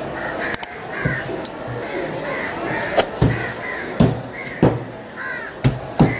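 Heavy fish cleaver chopping through a grouper onto a wooden log chopping block, a series of sharp chops about once or twice a second. Crows caw in the background, and a steady high tone sounds for a second or two early on.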